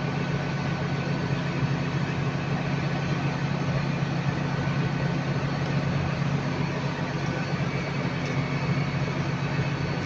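Hitachi Class 802 bi-mode train's underfloor diesel engines running steadily as it stands at the platform ready to depart, a low, even hum.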